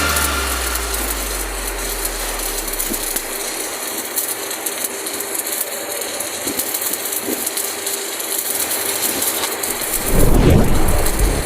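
Electric arc welding: a steady, dense crackle and sizzle from the welding arc. A bass note fades out over the first few seconds, and a louder low swell comes in near the end.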